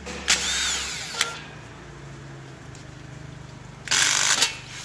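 Cordless drill-driver with a Phillips bit backing out the fan-guard screws of an electric motor: two short bursts of the drill running, one just after the start and one near the end, with a sharp click about a second in.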